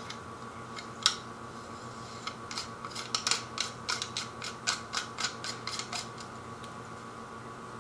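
Threaded metal spacer rings being screwed together by hand, giving small clicks and scrapes. One sharper click comes about a second in, then a quicker run of clicks follows from about two and a half to six seconds.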